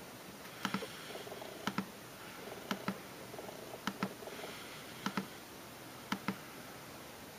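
Faint double clicks, a pair about once a second, repeating evenly over quiet room tone.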